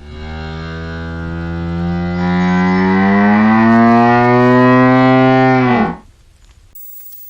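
A single long, low, moo-like animal call lasting about six seconds. It grows louder partway through and its pitch slowly rises, then drops briefly as it cuts off.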